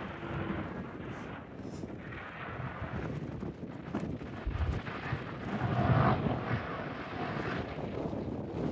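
An engine passing, swelling to its loudest about six seconds in, with wind buffeting the microphone.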